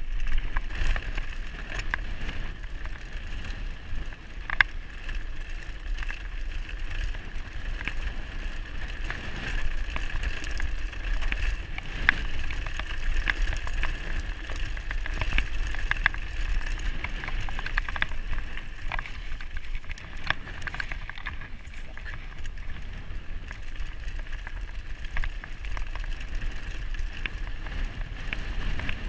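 Mountain bike rolling fast down a loose, stony gravel track: continuous tyre noise and rattling, with many sharp clicks and knocks as the wheels hit stones, over a steady low rumble.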